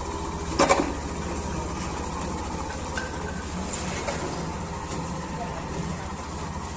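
Hero Xtreme 160R's single-cylinder engine idling steadily, with one sharp clack about half a second in.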